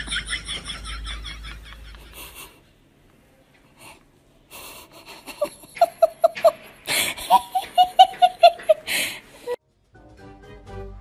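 A person laughing in quick, rhythmic bursts, first high-pitched, then after a short pause a louder run of about four laughs a second. Background music comes in near the end.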